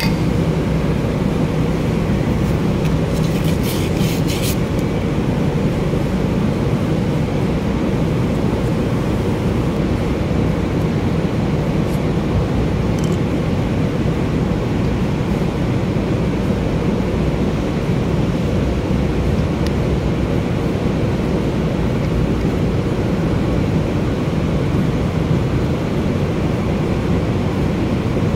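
A steady low rumbling noise, with a short hiss of aerosol spray about three seconds in lasting a little over a second.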